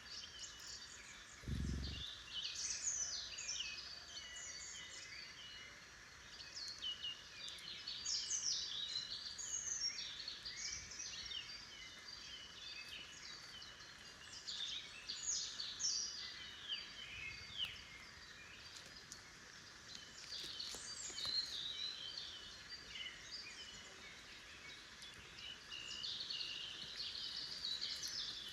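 Wild songbirds singing in a forest, many short overlapping song phrases coming one after another, over a steady background hiss. A brief low bump about two seconds in.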